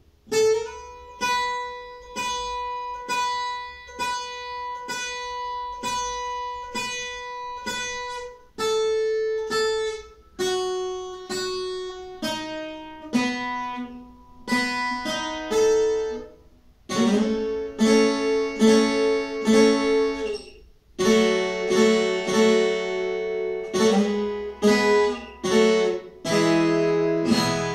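Viola caipira, the Brazilian ten-string guitar with paired courses, picked solo with a thumbpick. For the first eight seconds one note is plucked over and over at an even pace. Then come changing notes and two-note figures on pairs of courses, and the playing grows fuller, with several notes at once, in the last ten seconds.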